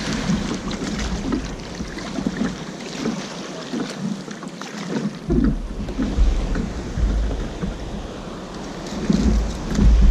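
Wind buffeting the microphone over water lapping against a kayak's hull. The low wind rumble drops away for a couple of seconds in the middle, then gusts back.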